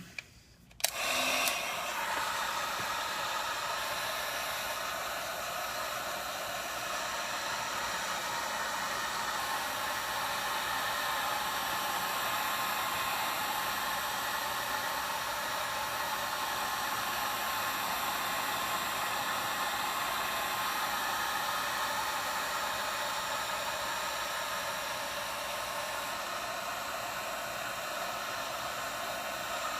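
A hot-air blower switches on about a second in and runs with a steady whooshing rush. It is heating the iPad 2's glass to soften the adhesive underneath.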